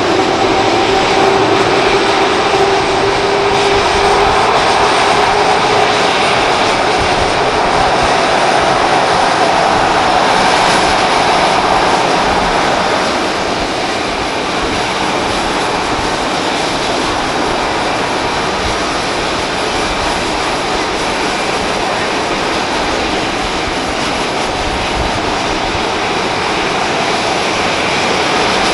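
Boeing 737-500's CFM56 jet engines running on the ground: a steady loud jet rush with engine whines that slowly rise in pitch, and the sound eases a little about halfway through.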